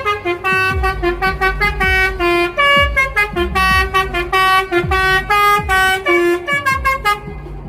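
A truck's basuri "telolet" horn, a set of electric air horns, playing a quick melody of short loud notes that stops abruptly about seven seconds in. A deep thudding beat repeats underneath.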